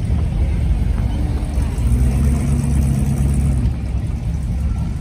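Cars driving slowly past close by at low engine speed: a steady low rumble, with one engine's tone standing out for a couple of seconds in the middle before easing off.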